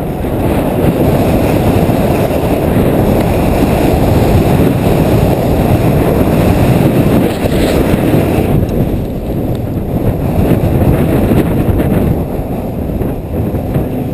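Wind buffeting an action camera's microphone on a moving snowboarder, mixed with the rush of the board sliding over snow. The sound is a loud, steady rumble, and its higher hiss drops away about eight and a half seconds in.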